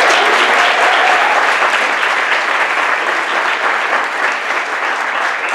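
Audience applauding, a steady even clapping from a seated crowd.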